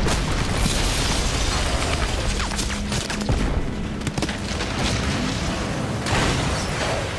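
Action-film sound mix of an explosion booming, with crashing debris and many sharp cracks through a steady roar, over score music.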